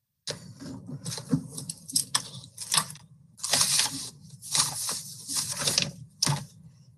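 Rapid, irregular scribbling strokes as a shape is coloured in by hand with a stylus, with a low steady hum underneath. The strokes start about a third of a second in and run in uneven bursts to the end.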